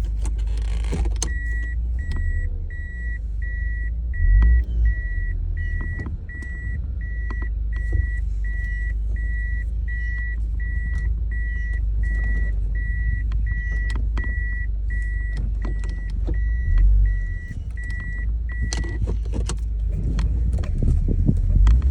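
Car's electronic warning chime beeping steadily, about three beeps every two seconds, stopping about 19 seconds in, over a steady low rumble with a few faint clicks.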